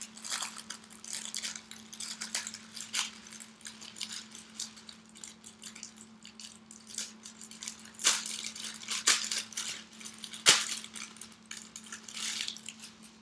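Product packaging holding a pair of arm sleeves crinkling and crackling as it is handled and torn open by hand, with a few louder sharp snaps in the second half.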